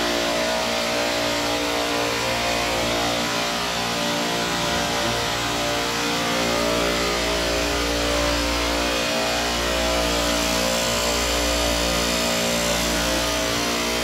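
Compressors of a centralized refrigeration rack running: a steady hum made up of several steady tones over a hiss.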